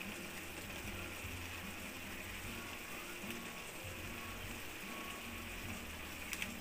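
Pot of chicken afritada, chicken and vegetables in broth, simmering on the stove with a steady faint hiss while thick tomato sauce is poured in from a pouch. A couple of sharp clicks come near the end.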